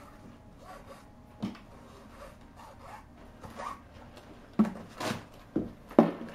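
A cat pawing and digging inside a cardboard box of crumpled brown wrapping paper: paper rustling and scraping against cardboard, with several sharper, louder scratches and bumps in the last couple of seconds.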